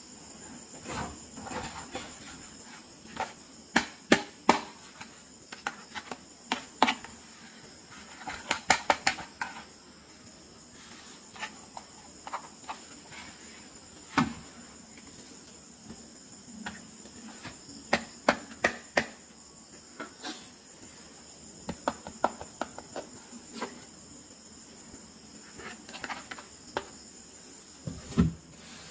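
Plastic toys handled and set down on a mat: scattered sharp clicks and knocks, some in quick clusters, with a louder knock about halfway and another near the end. A steady high-pitched tone runs underneath.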